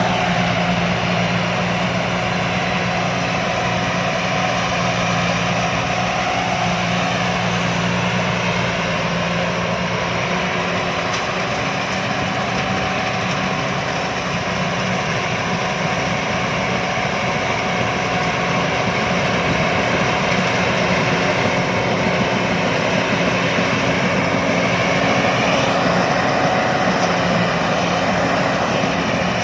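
Rice combine harvester running steadily, its diesel engine and working machinery making a loud, continuous drone.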